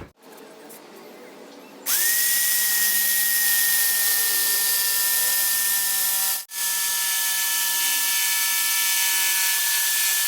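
A 650 W Hoyoma electric jigsaw starts about two seconds in with a quick rising whine, then runs steadily at full speed, cutting wood along a parallel guide, over a loud hiss. There is a brief break just after the middle.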